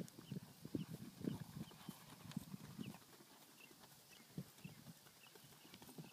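Hoofbeats of a horse cantering on grass: soft, dull thuds for the first few seconds that fade away about halfway through and return faintly near the end.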